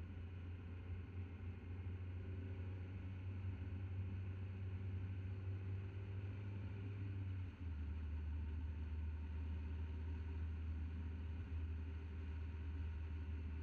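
A car driving, heard from a camera mounted on its hood: a steady, muffled low drone of engine and road noise. About halfway through it dips for an instant and settles slightly lower in pitch.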